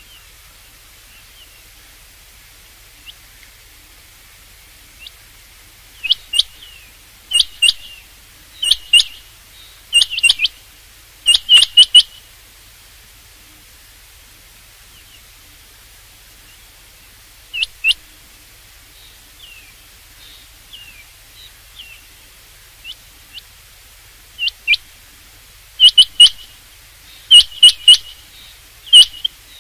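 Rain quail calling: sharp, high whistled notes, mostly in quick doubled pairs. One run of calls comes about six seconds in and another near the end, with fainter single notes between.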